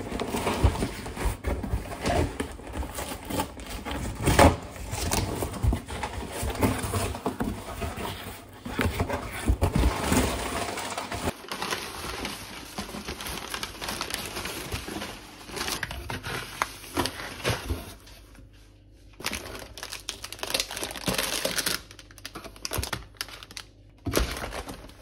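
Brown kraft packing paper crinkling and rustling while a cardboard delivery box is handled and unpacked, with scattered knocks of the box and items. Plastic-wrapped goods crackle as they are set down near the end.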